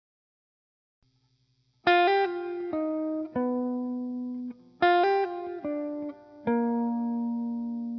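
Background music: after about two seconds of silence, a guitar plays slow plucked notes that ring out and fade, in three short phrases.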